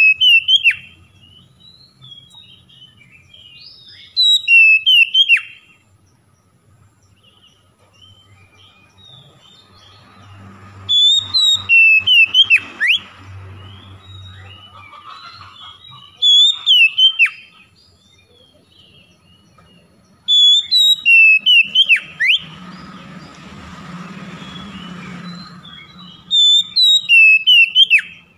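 Oriental magpie-robin (kacer) singing: about six loud bursts of sharp, quickly rising and falling whistled notes, a few seconds apart, with softer scattered notes in between.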